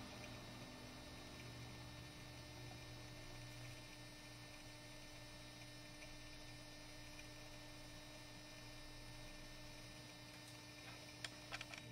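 Faint steady electrical hum from a homemade magnetic levitation rig's electromagnet coil and its power amplifier as it holds the object suspended, with a few faint clicks near the end.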